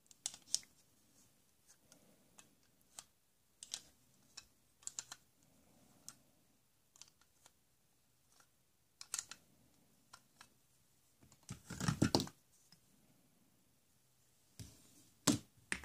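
Hard plastic toy tools clicking and tapping as a toy wrench is fitted onto plastic bolts in a plastic beam: scattered light clicks, with a louder rattling clatter about twelve seconds in and two more sharp clicks near the end.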